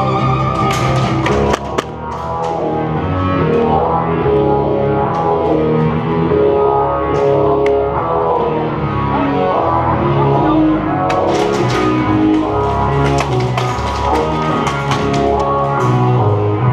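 Music playing throughout, many pitched notes over a beat with sharp drum-like hits.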